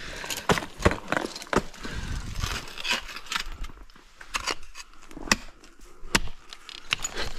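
Irregular sharp knocks and crunches of ice-climbing gear striking ice and snow, with metal clinking, several strikes a second at times and gaps between.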